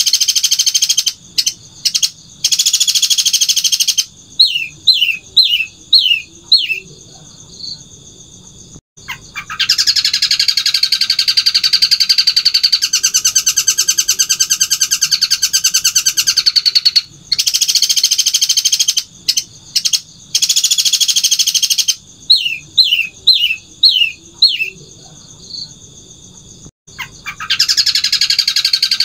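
Long-tailed shrike (cendet) singing loudly: long, very rapid, high-pitched trills held for several seconds at a time, broken twice by a run of five or six quick down-slurred notes.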